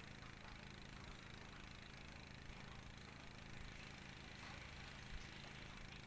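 Near silence: a faint steady low hum under light hiss.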